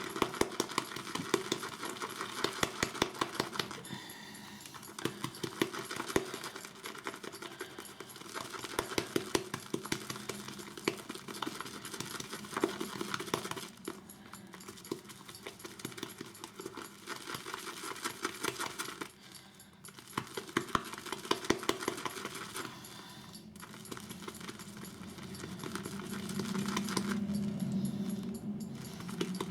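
Badger-hair shaving brush whisking shaving soap into lather in a bowl: a fast, steady run of wet clicks and ticks, with a few brief pauses.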